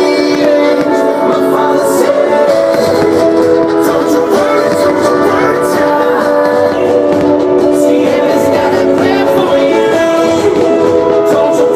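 Loud music with long held notes and chords.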